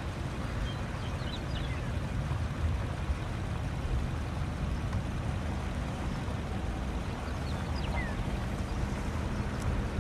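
Wind buffeting the microphone: a steady low rumble with no let-up. A few faint high chirps come through about a second in and again near the end.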